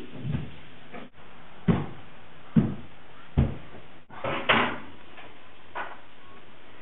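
Footsteps thudding on carpeted stairs: about six heavy steps, roughly one a second, the loudest in the middle.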